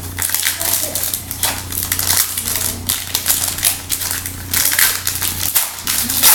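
Foil wrapper of a baseball card pack being torn open and crinkled by hand: a dense run of quick crackles.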